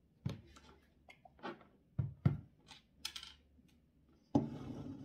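Handling noises on a workbench: a series of light clicks and knocks as small tools and parts are picked up and set down, with a short scraping rustle about three seconds in and a denser rustle of handling near the end.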